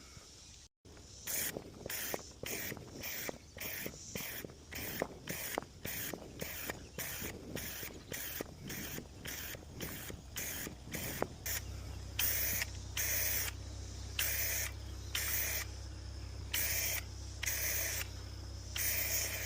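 Aerosol can of marking paint being shaken, short rattling strokes about two or three a second. After that it is sprayed in a series of longer hisses to paint marks on the ground. A low steady hum comes in about halfway.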